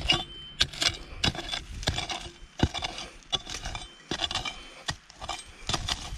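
A pointed metal hand digger stabbing and scraping into hard, dry clumpy soil and dry cane stubble: repeated sharp chops and crunches, roughly two a second, digging out a metal-detector target.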